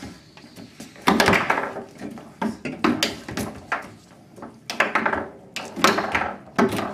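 Sharp clacks and thunks from play on a foosball table, about a dozen hits at irregular intervals, the loudest about a second in.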